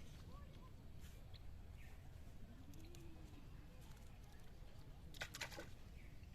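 Faint outdoor background with a steady low rumble and a few faint bird calls. A quick run of three or four sharp clicks comes about five seconds in.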